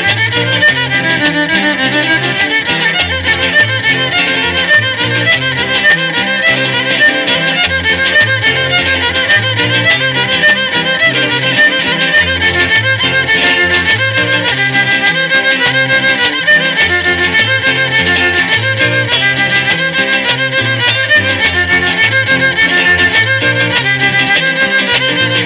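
Instrumental stretch of a cumbia with no singing: a violin carries the melody over a steady, bouncing bass line.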